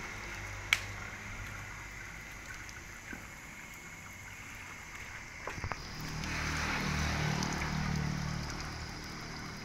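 Water from a garden hose flushing through a bus radiator core and running out onto the ground, a steady trickling and rushing. A sharp click comes just after the start, and a louder rushing swell with a low rumble from about six to eight seconds in.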